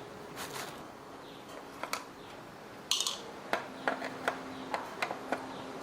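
A series of light clicks and taps, as from small parts or tools being handled, with a short hiss about three seconds in and a faint steady hum underneath.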